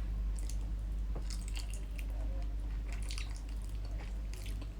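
Faint wet chewing and mouth clicks from a person eating, scattered small smacks over a steady low hum.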